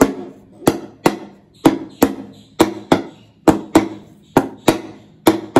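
A metal pressure cooker full of cake batter being knocked repeatedly, about a dozen sharp knocks with a short metallic ring, often in quick pairs. The tapping is done to bring up and burst the air bubbles in the batter.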